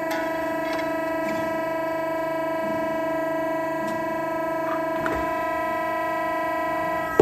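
Kingsland 85XS punch and shear's 7.5 kW motor and hydraulic pump running, a steady droning hum with a clear whine. Light clicks and scrapes of a flat steel bar being slid over the machine's steel table come and go over it.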